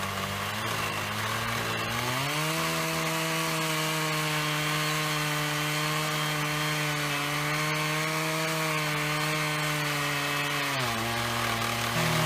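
Two-stroke chainsaw driving an Alaskan chainsaw mill through a silver maple log, running under load. Its engine note rises about two seconds in and holds steady, then dips briefly near the end and climbs again.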